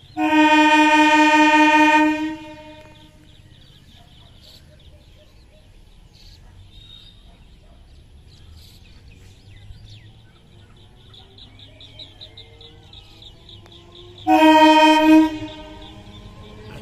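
Electric multiple unit (EMU) local train's horn sounding twice: a long blast of about two seconds at the start and a shorter blast of about a second near the end. Between the blasts the train's quieter running sound can be heard, with a rising whine toward the end.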